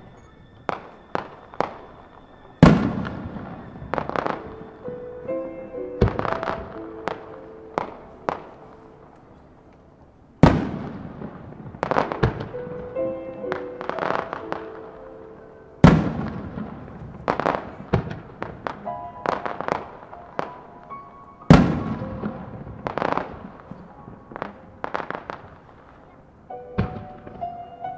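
Large Japanese aerial firework shells bursting: four heavy booms several seconds apart, each ringing out, with quicker sharp cracks between them, over background music.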